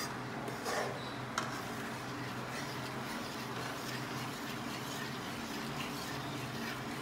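Steady low kitchen hiss with a faint hum, broken by a couple of light clicks of a metal spoon against the aluminium kadhai about one and one and a half seconds in.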